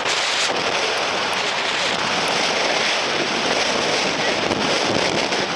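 Typhoon-strength wind blowing across the microphone: a steady, loud rush of wind noise.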